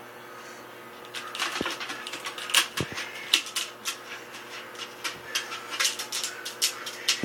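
A dachshund clicking and tapping against aquarium glass as it tries to bite the fish behind it: rapid, irregular sharp clicks, starting about a second in.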